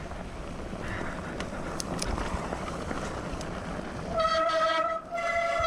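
Mountain bike tyres and wind noise on a trail with a few clicks, then about four seconds in a loud, steady, horn-like squeal from wet disc brakes, breaking off briefly and starting again.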